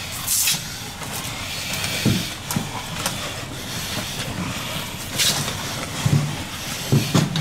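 Turnout gear rustling and nylon webbing and buckles being handled as firefighters in SCBA rig a strap around a downed firefighter. Two short sharp hissing bursts come through, one just after the start and one about five seconds in.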